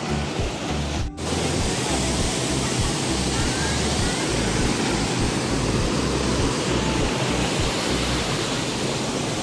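Steady rushing of a waterfall, a dense, even roar of falling water that cuts out for an instant about a second in.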